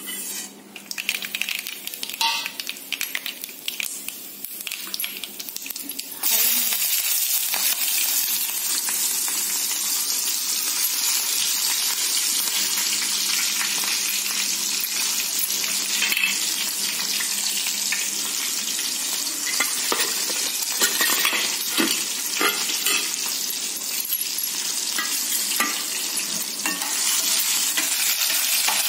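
Steel dishes clinking, then about six seconds in a sudden sizzle starts as mustard seeds and green chillies go into hot oil in a pan for a tempering. It becomes a steady frying hiss with scattered crackles.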